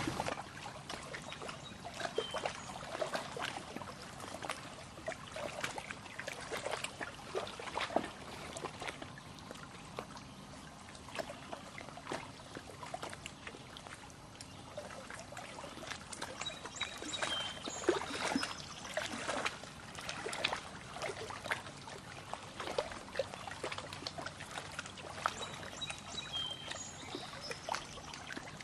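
Lake water lapping and trickling at the shore in many small, irregular splashes, with a few short high chirps now and then.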